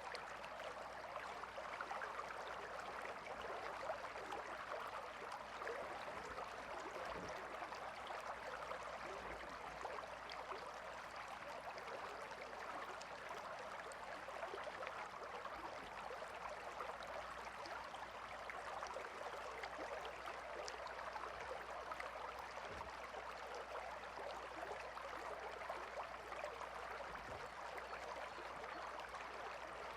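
Small river flowing steadily, a continuous even babble of water over stones.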